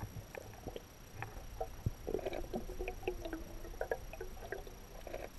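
Muffled underwater sound of a swimming pool, picked up by a camera under the water: scattered small clicks and taps, then squeaky gurgling from a little after a second in until near the end.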